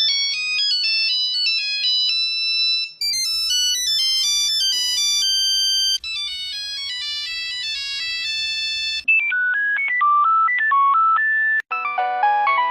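Nokia mobile phone ringtones, several different short electronic melodies played one after another, each switching abruptly to the next about every three seconds. The first few are high-pitched beeping tunes; from about nine seconds in the melodies are lower, and the last one is played in chords.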